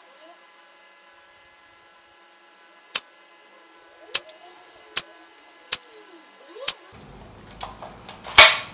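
Tokyo Marui FAMAS 5.56-F1 electric airsoft gun firing five single shots, each a short sharp crack, about a second apart, starting a few seconds in. Near the end comes a louder brief rush of noise.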